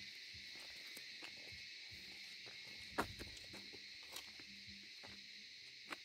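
Steady high-pitched chorus of insects such as crickets, a faint continuous drone, with a few sharp clicks, the loudest about halfway through.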